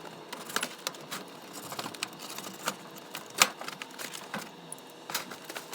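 Handling noises from a pro scooter being turned over and shown: scattered light clicks and taps at uneven intervals, with a sharper knock about three and a half seconds in.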